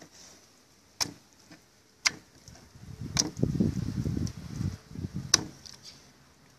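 Kitchen knife striking a plastic cutting board as king mackerel fillet is cut into pieces: four sharp clicks about a second apart, with a low scuffling noise of the fish pieces being handled between the third and fourth.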